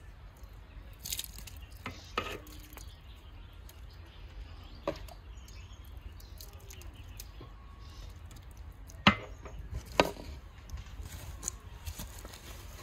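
Metal ladle knocking against aluminium cooking pots as chicken curry is spooned onto rice: a few scattered sharp knocks, the two loudest close together about nine and ten seconds in, over a low steady rumble.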